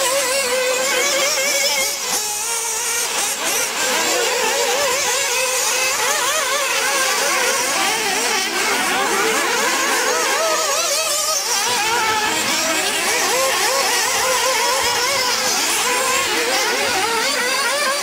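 Several 1/8-scale nitro RC buggies racing together, their small two-stroke glow engines making a steady high whine, many overlapping engine notes rising and falling as they rev and back off.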